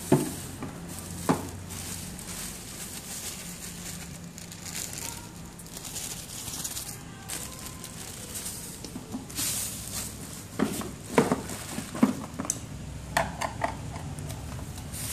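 Clear plastic wrap crinkling and rustling as it is handled, with sharp knocks and clunks from the boxed electrical unit being moved and set down: two near the start and a cluster in the last few seconds.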